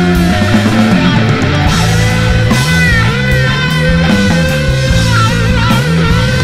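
Recorded rock music: electric guitar, bass and drums playing, with a high lead line that bends and wavers in pitch from about two and a half seconds in.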